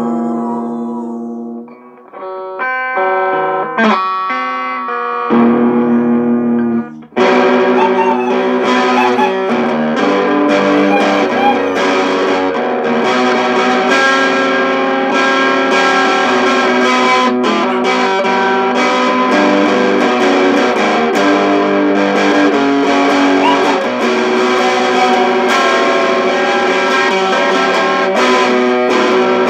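Squier Stratocaster-style electric guitar played through an Orange Micro Terror amp with distortion. It opens with a few separate notes and bends, then about seven seconds in breaks into dense, continuous playing.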